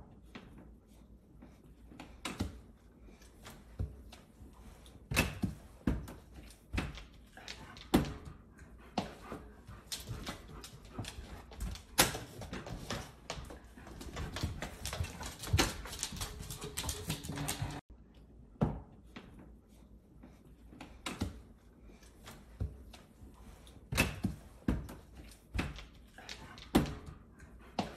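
Irregular clicks and knocks from a German shepherd's claws and a young deer's hooves on a wooden hallway floor, mixed with the plastic flap of a dog door knocking as the animals push through it. The clicking comes thickest around the middle.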